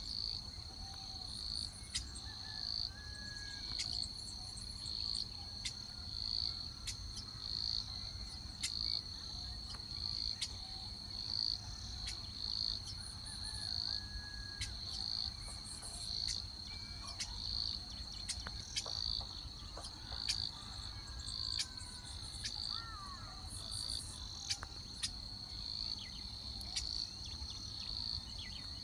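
Insect chirping: a steady high trill that swells in regular pulses about once a second, with a few faint bird whistles over it.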